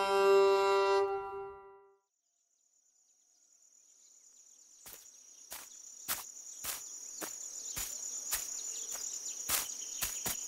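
A fiddle tune fades out. After a short silence, a night ambience of crickets chirping fades in, with sharp ticks about twice a second.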